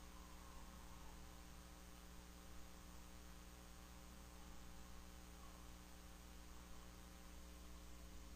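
Near silence: a low, steady electrical hum with faint hiss.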